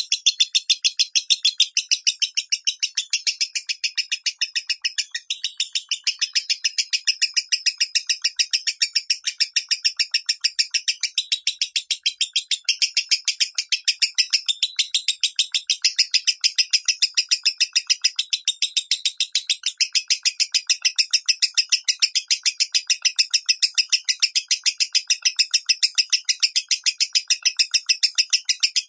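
Lovebird calling in an unbroken run of short, high-pitched chirps, about three to four a second: the shrill voice that lovebird keepers call 'minor'.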